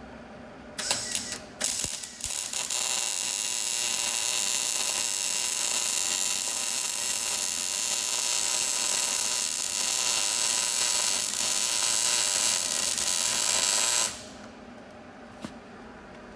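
Arc welding a bead on the parachute mount bar: a few short starts of the arc about a second in, then one long continuous weld of about eleven seconds that cuts off suddenly.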